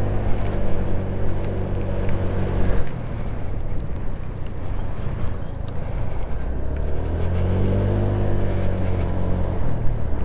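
Honda PCX125 scooter's single-cylinder engine running under throttle, heard from inside the rider's helmet with wind rush. About three seconds in, the engine note drops away as the throttle is eased, leaving a rushing noise. Near the end it picks up again with a rising pitch as the scooter accelerates.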